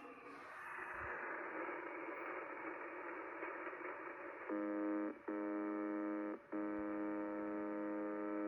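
Shortwave receiver audio from 4635 kHz: band-limited radio hiss, then about halfway through a steady buzzer tone comes on suddenly, dropping out briefly twice before carrying on.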